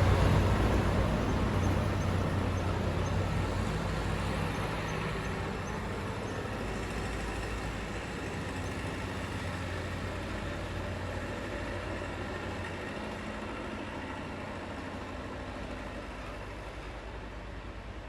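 Vintage tractor engines running and driving away, their steady low hum slowly fading into the distance.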